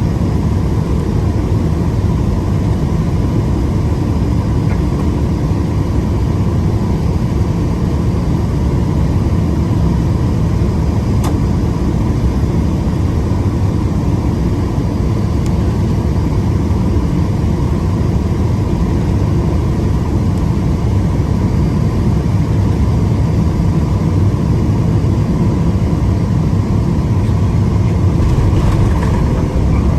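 Steady cabin noise inside a Boeing 777-200ER: a loud, even rumble of engines and airflow with a faint steady tone above it.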